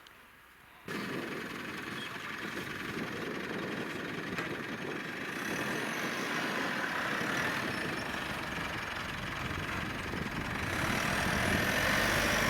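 Mitsubishi Pajero Sport SUV driving off-road with its engine running steadily under load. The sound starts abruptly about a second in and grows louder near the end.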